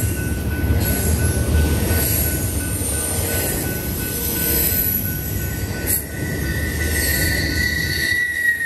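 Double-stack intermodal freight cars rolling past close by, their wheels rumbling on the rails with a steady high-pitched wheel squeal. A second, higher squeal comes in about two thirds of the way through.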